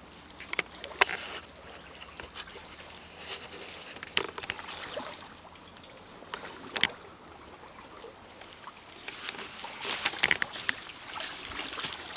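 Pond water sloshing and splashing, with a few sharp splashes or knocks standing out now and then.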